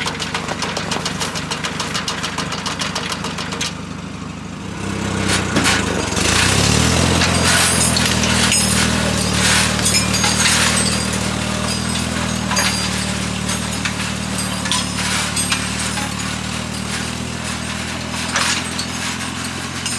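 International 414 tractor engine idling with a fast ticking, then revving up about five seconds in and running steadily at higher speed as the tractor drives off, with scattered clanks and rattles over the engine. The sound slowly fades as the tractor pulls away.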